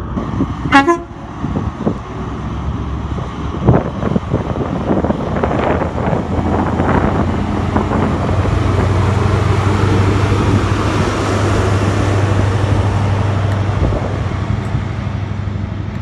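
Diesel engine of a Class 43 HST power car (MTU 16V4000) pulling a train out of the station, a steady low drone that grows louder from about halfway as the power car passes close, with a brief falling whistle-like sound about a second in.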